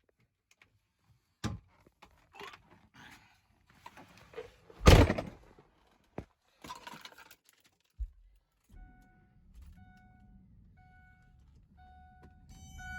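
Clicks, clunks and one loud thump from handling the 2004 Ford Excursion. Then its V10 engine starts and runs at a low, steady idle. A warning chime beeps about once a second over it, more and more closely near the end.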